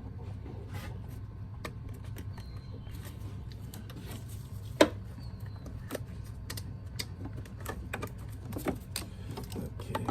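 Scattered light clicks and knocks of hand work on car parts, with one sharper knock about five seconds in, over a steady low hum.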